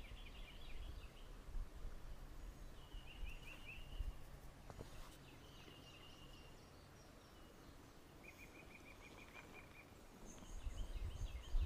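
Faint birdsong from the woods: several short trills of quickly repeated high notes, a second or so each, spaced a few seconds apart, over a low background rumble.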